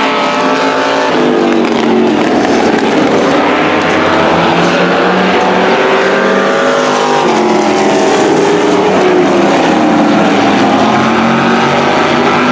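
Engines of several demo race cars and trucks running around the track at once, their pitches rising and falling as they accelerate, lift and pass.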